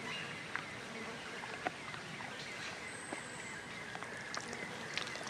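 Natural outdoor ambience: a steady background of insects and birds, with scattered small clicks and a brief high, thin whistle about halfway through.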